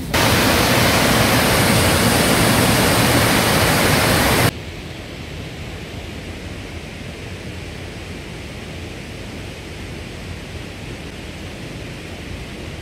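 Waterfall pouring from a pond: a loud, steady rush of falling water. About four and a half seconds in it cuts off suddenly, leaving a much fainter steady hiss.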